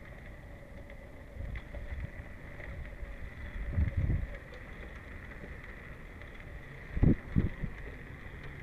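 Wind rumbling on a small action camera's microphone, with a few dull low thumps near the middle and the end, over a faint steady high whine.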